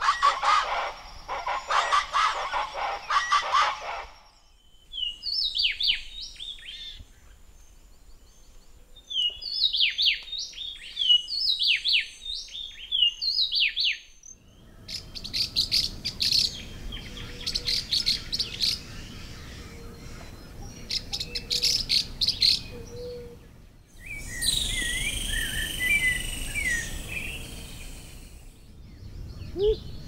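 A series of wild bird calls. The first few seconds are a Rufous-headed Chachalaca pair's loud duet. Next come runs of short descending chirps, then about ten seconds of rapid high calls of Pacific Parrotlets, then other squeaky calls. A Whooping Motmot's low hoot begins near the end.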